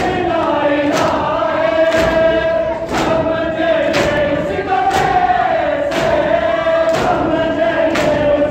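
A crowd of men chanting a Muharram noha together, with a loud slap of hands striking bare chests in unison (matam) about once a second.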